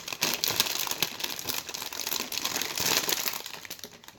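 Crinkly packaging rustling and crackling as it is handled, dying away near the end.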